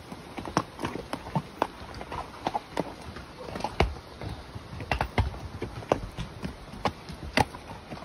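Gaited molly mule's hooves clip-clopping on a rocky dirt trail as it walks: an uneven run of sharp knocks and clicks, about two or three a second, some louder where a hoof lands on rock.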